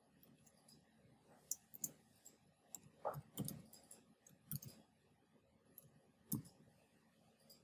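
Faint, irregular clicks of computer keyboard keys being typed: a few separate keystrokes and short runs of them.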